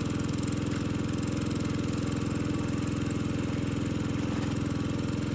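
Small engine of a water pump running steadily at a constant speed, drawing muddy water out of the pond through a suction hose.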